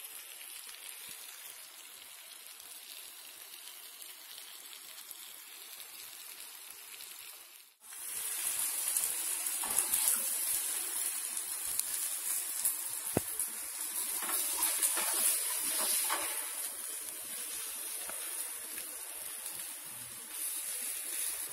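Fish steaks shallow-frying in oil on a tawa: a steady sizzle. About eight seconds in the sound breaks off for a moment and comes back louder and hissier, with scattered crackles.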